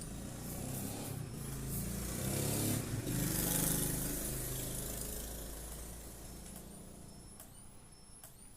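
A motor vehicle, likely a truck, passing by: engine hum and hiss swell to their loudest about three to four seconds in, then fade away.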